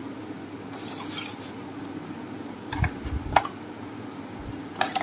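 Hard plastic clicks and knocks from handling an action camera and its clear plastic waterproof housing, with a brief rustling scrape about a second in. A steady low hum runs underneath.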